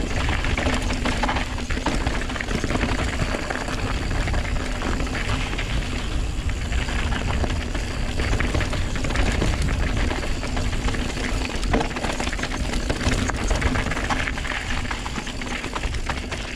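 Wind rushing over the action camera's microphone and knobby mountain-bike tyres rolling fast over a dirt and gravel trail, a steady noise with a heavy low rumble and a few small knocks from the bike.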